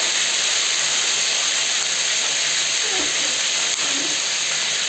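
A steady, even hiss, with a brief voice sound about three seconds in.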